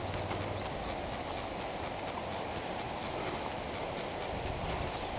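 Steady outdoor rushing noise, with a faint high insect trill that stops about a second in.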